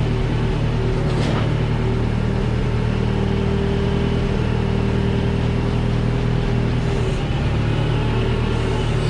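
New Holland L775 skid steer engine running steadily while working, its note shifting slightly about three-quarters of the way through.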